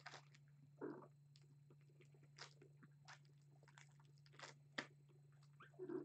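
Near silence: faint scattered ticks, clicks and soft scuffles of small kittens scrambling about on a fleece blanket, over a low steady hum.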